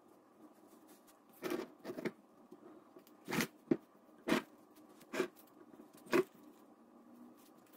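Blue painter's tape being pulled off the roll and pressed onto a plastic container, heard as about seven short, separate rips.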